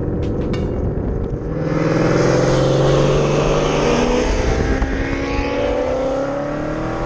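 Ford Mustang GT's 5.0 Coyote V8 through a cat-deleted exhaust with Roush axle-back mufflers, idling, then revved up about a second and a half in, the engine note climbing slowly and held high.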